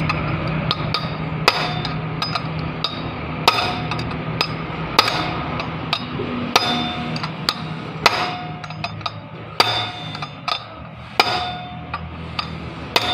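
Hammer blows on a metal rod braced against a GY6 scooter's kick-start gear, driving the gear off its shaft without a puller. Sharp, ringing metal strikes come about every second and a half, with lighter taps between them.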